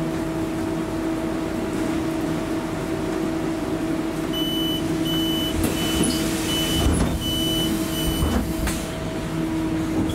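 Škoda 28Tr trolleybus door-closing warning: about six short, high beeps, a little over half a second apart, sound while the doors swing shut. Under them runs the steady hum of the trolleybus standing at the stop.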